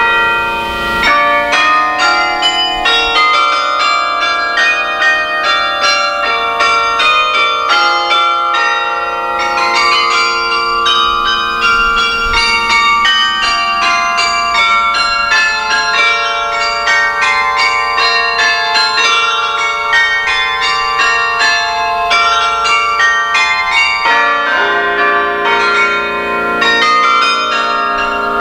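Carillon bells playing a carol: quick runs of notes struck from the baton keyboard, each bell ringing on and overlapping the next. Near the end, deeper bells join in under the melody.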